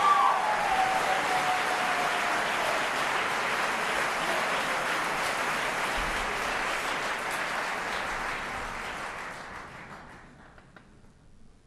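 Audience applause after a barbershop chorus's song, fading away about ten seconds in.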